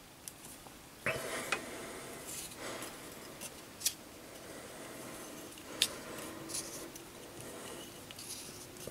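The tight-fitting knurled brass top of a brass-tube pellet holder being twisted on its tube: metal rubbing on metal with a few sharp clicks, two about a second in, one near four seconds and one near six seconds.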